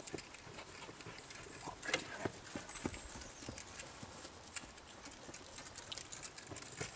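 Faint, irregular soft knocks and ticks, with no steady rhythm.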